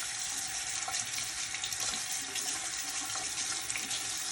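Water running steadily from a sink tap, rinsing a hummingbird feeder under the stream.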